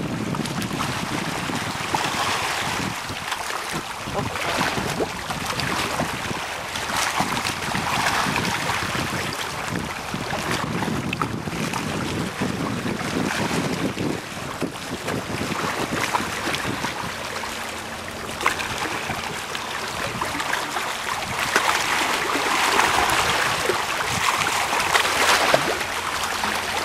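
Wind buffeting the microphone over sea waves washing against shore rocks, the wash swelling and easing every few seconds.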